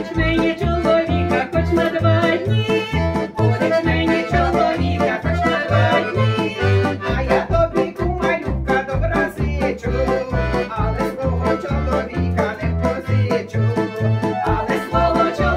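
Two women singing a Ukrainian folk song in Ukrainian with a piano accordion accompaniment, over a steady bass beat.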